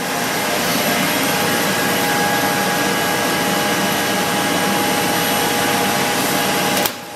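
Steady, loud whooshing machine noise, like a blower or fan running, with a faint steady whine in it; it drops away abruptly near the end.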